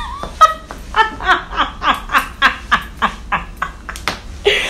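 A woman laughing hard: a long run of short, breathy laughs at about four a second.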